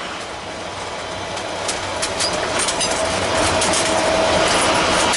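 Vehicle noise while driving, growing steadily louder as it picks up speed, with a faint steady whine from about halfway and scattered sharp clicks.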